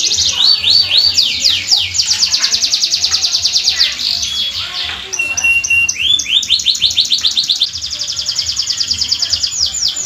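Domestic canary singing a long unbroken song of very fast rolling trills, each phrase a rapid run of repeated notes that changes to a new phrase every second or two. About five seconds in there is a brief steady whistle before the fast trills resume.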